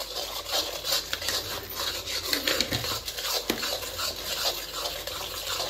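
A spoon stirring and scraping in a pan, with many small clinks and scrapes.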